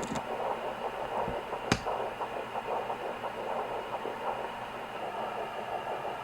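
Fetal heartbeat picked up by a Sonoline B pocket fetal Doppler and played through its speaker: a fast pulsing whoosh mixed with another swishing sound. A single sharp click just under two seconds in.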